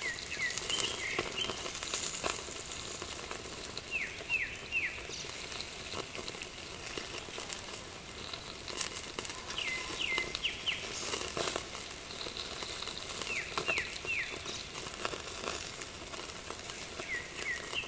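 Whole chicken sizzling over hot hardwood charcoal in a small kettle grill, with fine irregular crackles from the coals and dripping fat. A bird calls in short falling notes, two or three at a time, every few seconds.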